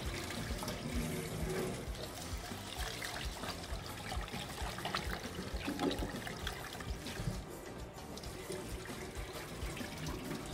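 Water running from a kitchen tap and trickling in a saucepan as basmati rice is washed, rinsing off the excess starch.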